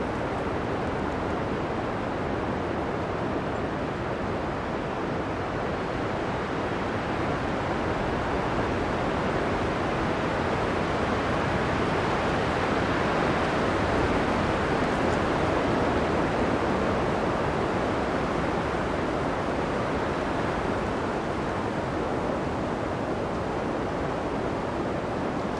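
Strong blizzard wind blowing, a dense rushing noise that swells around the middle and then eases a little.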